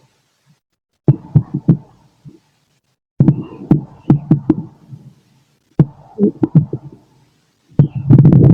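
Stomach and intestinal gurgling heard through a stethoscope on the abdomen, the sound of food being digested. It comes in irregular bursts of bubbly rumbling and quick pops with near-silent pauses between them: about a second in, about three seconds in, about six seconds in, and loudest near the end.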